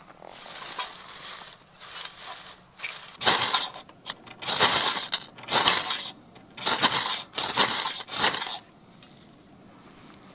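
A ferrocerium rod is struck with a scraper into a pile of wood shavings in a small steel fire box to light them: six or seven sharp scrapes in quick succession, from about three seconds in until near the end. Before the scrapes there is lighter rustling as the shavings and kindling are handled.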